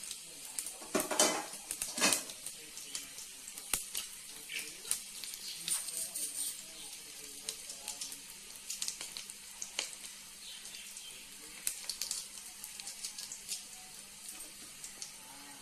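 Cumin seeds, peppercorns and chillies frying in ghee in a pressure cooker: a steady light sizzle full of small crackling pops. There are a couple of knocks of a metal slotted ladle against the pot about one and two seconds in.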